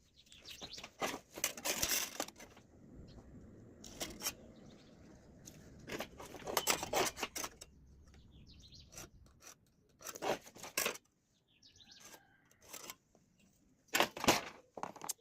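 Irregular metallic clinks, knocks and scrapes of steel pieces being handled, in clusters with quieter gaps between them.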